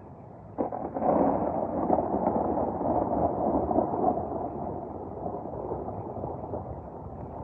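A thunderclap: a sharp crack about half a second in, then a loud rumble of thunder that slowly dies away.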